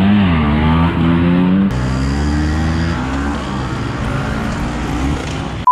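Old Vespa scooters' two-stroke engines running and revving, the engine note rising and falling, with abrupt changes in the sound about two and three seconds in.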